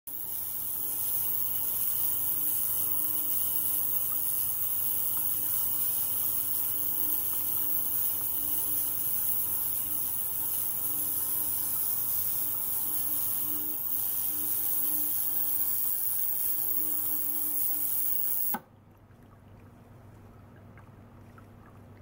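Ultrasonic cleaning bath running: a loud, steady high-pitched hiss from cavitation in the water, over a low hum and water circulated by a small pump. The hiss cuts off suddenly near the end, leaving a much quieter water flow.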